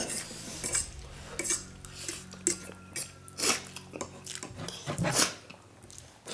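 Metal forks clinking and scraping against ceramic plates as noodles are eaten, in scattered short clicks with a louder clink about five seconds in.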